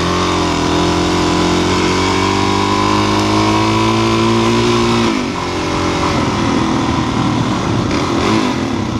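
Suzuki DR-Z400's single-cylinder four-stroke engine pulling steadily, its pitch climbing slowly for about five seconds, then dropping as the throttle comes off and the bike slows, with wind rush over the helmet microphone.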